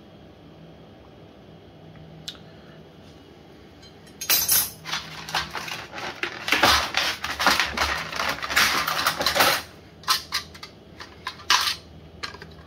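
Metal reciprocating saw blades clinking and rattling against each other in their case as they are handled. A single click comes about two seconds in, then a long stretch of dense clattering, then scattered clinks.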